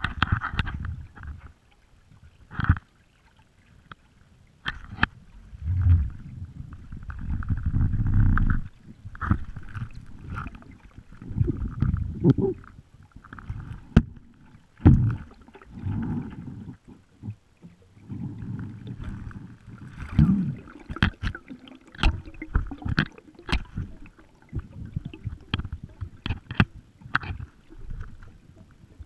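Muffled underwater sound from a GoPro in its waterproof housing, hanging on a magnet-fishing rope as it is dragged through a dock: uneven low rumbles of moving water, broken by many sharp knocks and clicks.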